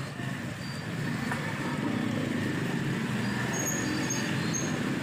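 Roadside street noise of passing traffic and motorbikes, steady throughout, mixed with the sizzle of samosas deep-frying in a large iron kadai of hot oil.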